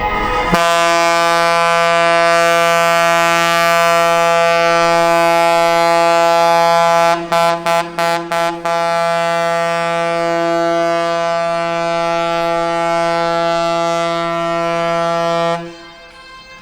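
Ship's horn of the Project 305 river cruise motor ship Borodino giving one long, loud farewell blast of about fifteen seconds, a single steady tone. The tone breaks up in a few short gaps about halfway through, then holds until it stops abruptly near the end.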